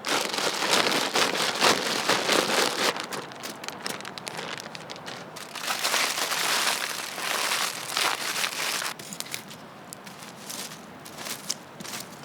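Aluminium foil crinkling and crumpling as it is handled, in two long spells, the second about six seconds in, with scattered crackles between and after.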